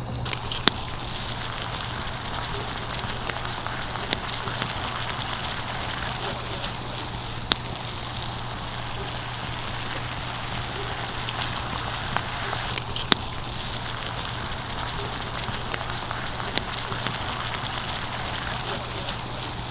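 Food frying in hot oil: a dense, steady sizzling hiss with sharp pops every second or two.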